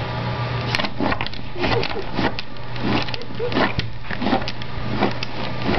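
A puppy pawing under a door, its claws scraping on the tile floor in an irregular series of short scratches, about two or three a second. A steady low hum runs underneath.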